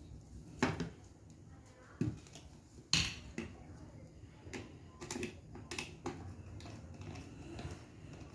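Irregular sharp clicks and knocks of hard parts being handled, about half a dozen, the loudest about three seconds in.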